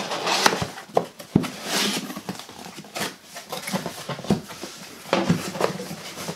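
Paper and cardboard rustling as a shipping box is unpacked and packing paper pulled aside, with a few sharp knocks of small boxes and cardboard being handled.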